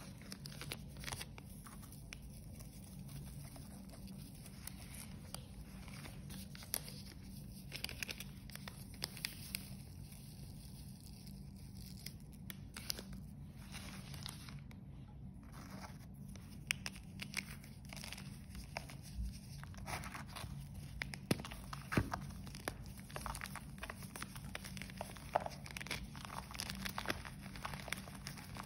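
Blocks of gym chalk dusted with holi powder being worked and crushed by fingers: irregular crunches and crackles of crumbling chalk, more frequent in the second half, over a faint steady low hum.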